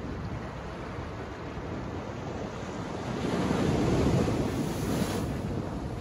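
Small ocean waves breaking against a large seaside rock and washing up the sand. The surf rushes steadily, then swells to its loudest about four seconds in and ends in a hissing wash of foam.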